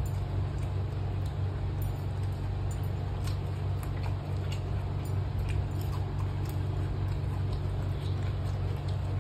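A steady low hum runs throughout, with faint scattered clicks and rustles from hands eating off leaf plates.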